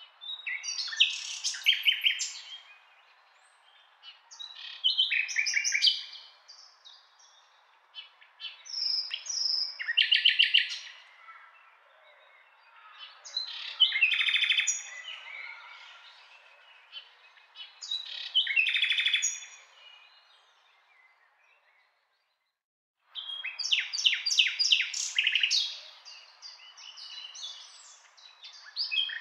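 A songbird singing short phrases of rapid high notes, one every four seconds or so, over a faint steady hiss. The sound cuts out completely for about a second about three quarters of the way through, then the singing resumes more densely.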